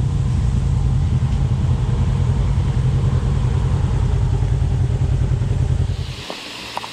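Polaris RZR side-by-side engine idling with a steady low rumble, which drops away suddenly about six seconds in, leaving the steady rush of a small waterfall.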